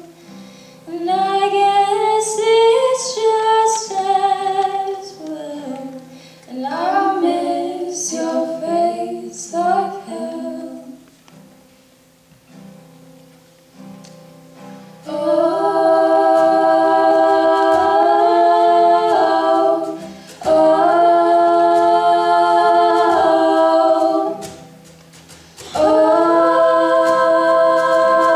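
Choir singing a cappella. A moving melodic line runs for about ten seconds and dies down to a soft lull. From about fifteen seconds in come long held chords, which break off briefly twice.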